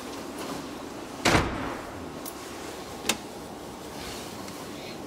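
A heavy thud at an elevator's swing landing door about a second in, then a lighter click and a sharp click over the next two seconds, as the door and its call-button panel are handled.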